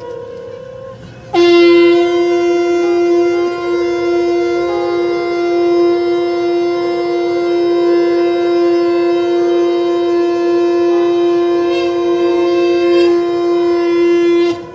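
Conch shells (shankh) blown at the start of the aarti ritual. A fainter tone dies away at first, then a loud long blast starts abruptly about a second and a half in and is held at a steady pitch until it stops just before the end.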